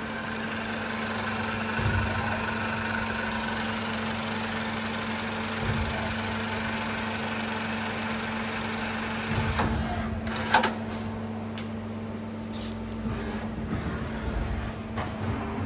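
Daewoo Puma 230M CNC lathe running: a steady machine hum with a constant tone and a hiss, broken by a few sharp knocks, the loudest about ten and a half seconds in.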